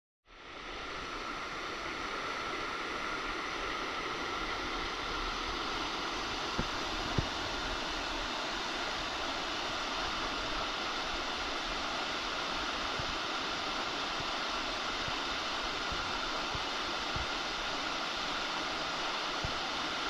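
Twin waterfall and rocky stream rapids rushing: a steady, even noise of flowing water that builds up in the first second or two and then holds, with two faint low bumps about six to seven seconds in.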